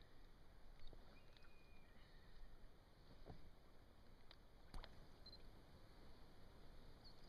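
Near silence: quiet outdoor room tone with a few faint, scattered clicks and ticks, the loudest nearly five seconds in.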